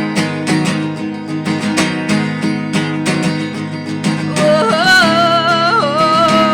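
Live acoustic guitar strumming a steady rhythm between sung lines of a song; about two-thirds of the way in, a voice comes in with a long held wordless note over the guitar.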